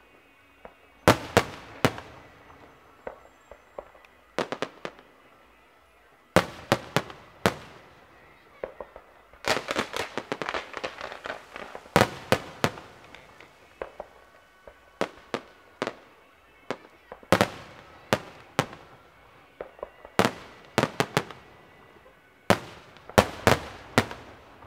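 Aerial fireworks bursting: clusters of sharp bangs with short gaps between them, and a stretch of dense crackling about ten seconds in.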